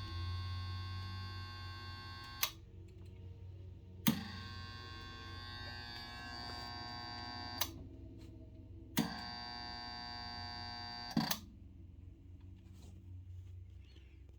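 Railroad rail charger transformer humming steadily like a mercury vapor lamp ballast. Three times, a loud harsh electrical buzz comes on and cuts off, each time starting and ending with a sharp click.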